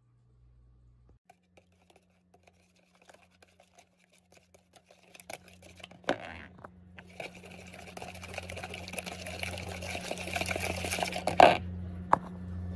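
Wire whisk beating raw eggs in a mixing bowl: a fast, steady scratchy rattle that starts about halfway through and stops abruptly near the end. Before it, a few light clicks and knocks as the eggs are handled and cracked into the bowl.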